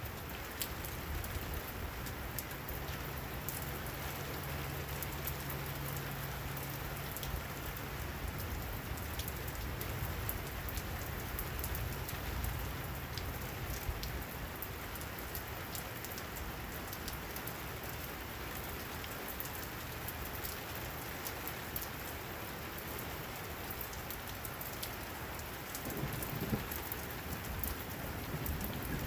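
Steady rain falling on wet pavement, with scattered close drops ticking. A low rumble of thunder begins near the end.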